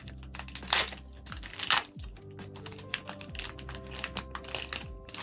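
Background music with a deep bass line that drops in pitch every second or so, under the crinkle and swish of trading-card packs and cards being handled, with two louder swishes about one and two seconds in.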